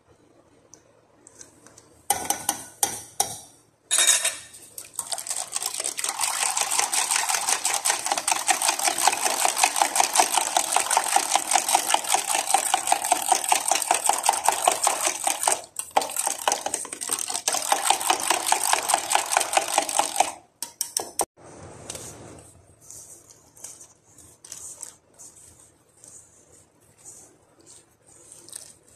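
Whisk beating a thin yogurt mixture in a stainless steel bowl: a rapid, even run of strokes that starts after a few clicks and goes on for about fifteen seconds, then stops. Softer, scattered sounds of flour being mixed in by hand follow.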